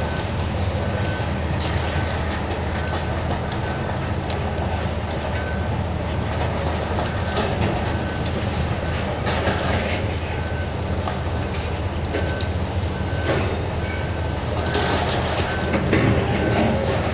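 Heavy diesel demolition excavators running steadily, with a machine's alarm beeping at just under one beep a second that stops for a few seconds in the middle and then resumes. Scattered crunches and knocks of concrete and debris being broken and dropped, loudest near the end.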